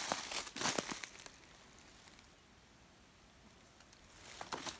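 Footsteps crunching through dry fallen leaves: a run of steps at the start, a quieter stretch of a few seconds, then steps again near the end.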